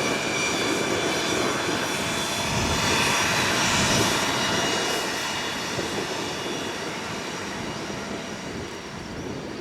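Cessna Citation CJ2+ twin Williams FJ44 turbofan jet engines running, a steady whine of high tones over a rushing jet noise. It is loudest about four seconds in, then grows steadily fainter.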